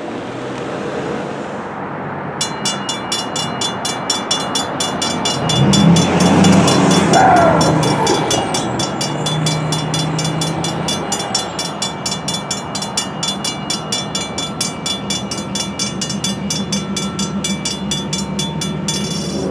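Railroad crossing bell starts ringing about two seconds in, with rapid even strokes, as the crossing activates for an approaching train. It stops just before the end, once the gates are down. A road vehicle passes, loudest around six to seven seconds in.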